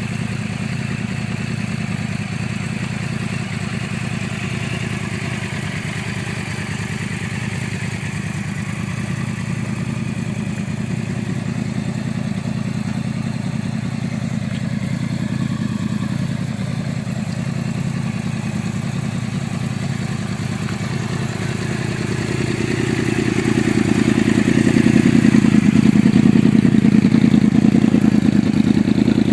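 Motorcycle engine running steadily, growing louder from about 22 seconds in and staying up to the end.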